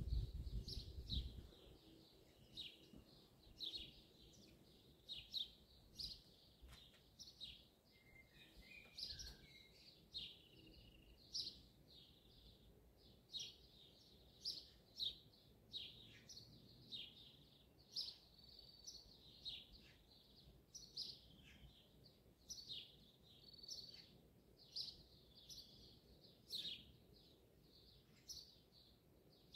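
Birds singing: a steady series of short, high chirps and calls, about one or two a second, with a brief low rumble in the first second or so.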